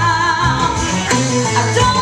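Young woman singing a country song into a handheld microphone, with vibrato on held notes, over loud backing music.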